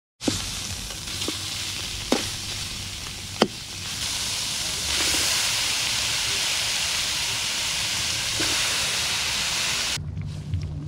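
Eel pieces and spice paste sizzling hard in a large steel wok, with a metal spatula clicking against the pan a few times in the first few seconds. The sizzle grows louder about halfway through and cuts off suddenly near the end.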